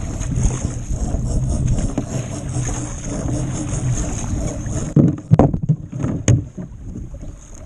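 Wind buffeting the microphone and a kayak paddle splashing through choppy sea water with each stroke. About five seconds in come several sharp knocks as the paddle is laid down across the kayak.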